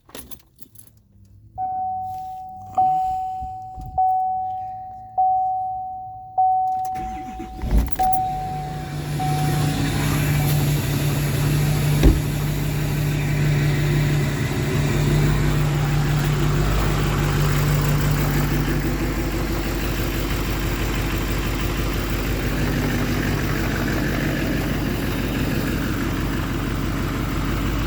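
Dashboard warning chime ringing about once a second, six times, then the 2015 Chevy 3500's Duramax 6.6-litre V8 turbodiesel cranks and starts about eight seconds in and settles into a steady idle.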